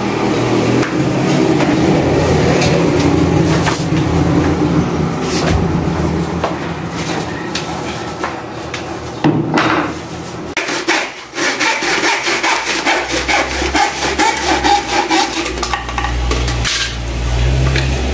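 Wooden boards being handled and knocked about, then a hand saw cutting a board with quick, repeated strokes in the second half.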